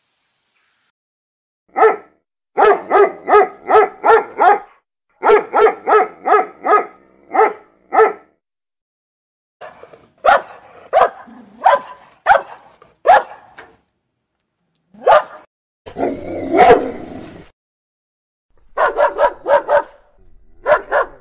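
A dog barking in quick runs of several barks, about two or three a second, with short silent pauses between the runs. A longer, harsher outburst about two-thirds of the way through is the loudest part.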